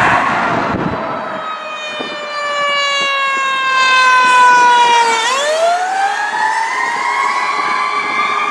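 Fire truck siren wailing: its pitch falls slowly for several seconds, then about five seconds in it sweeps back up and holds high.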